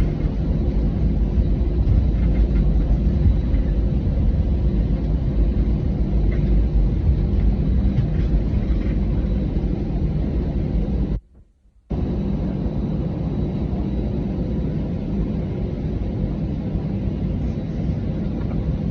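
Steady low rumble of an Airbus A320-200 heard from inside the cabin on the ground after touchdown: engine and rolling noise, slightly louder in the first few seconds. The sound cuts out for about half a second near the middle.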